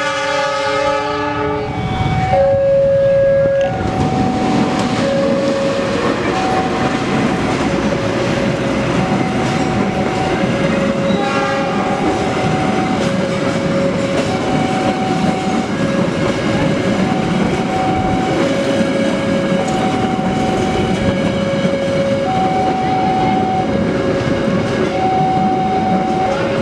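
Diesel locomotive horn blowing a multi-note chord for the first couple of seconds, then the passenger train rolling past close by with steady wheel-on-rail noise. Through it a level-crossing warning signal sounds, two notes alternating low and high about once a second.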